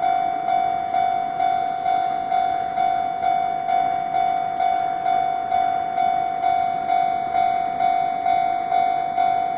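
Japanese level crossing's electronic warning bell ringing steadily, about two strokes a second, each stroke one bright tone that fades quickly. It signals that a train is approaching the crossing.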